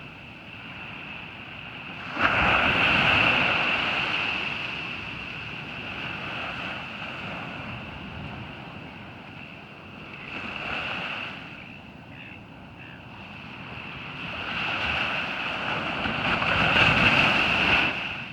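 Ocean surf on a beach: waves breaking and washing in three surges, the first starting suddenly about two seconds in, a smaller one midway, and a long build near the end, over a steady high hiss.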